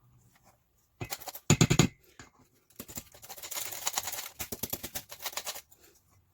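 Spatula scraping against a mixing bowl while folding flour into whipped egg batter: a short burst about a second in, then a longer run of quick scrapes that stops near the end.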